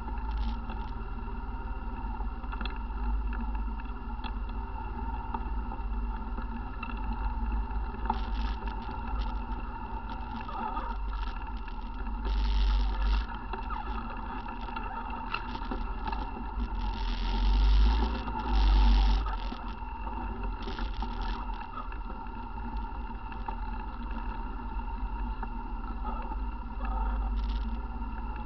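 ATV engine running steadily while riding a trail, with a few louder rumbling bursts of noise on the microphone about halfway through and twice more a few seconds later.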